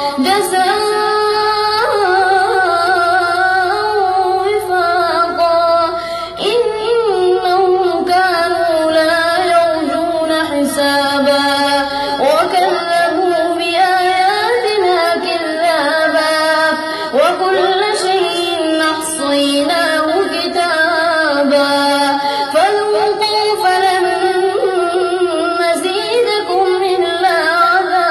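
A boy's voice reciting the Quran in a melodic chant, drawing out long phrases whose pitch slides up and down, with short pauses for breath between them.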